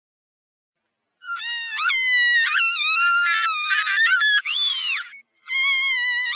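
Little Miss Calamity's cartoon crying voice run through pitch-raising effects: a loud, high, wavering wail that starts about a second in, breaks off briefly about five seconds in, then picks up again.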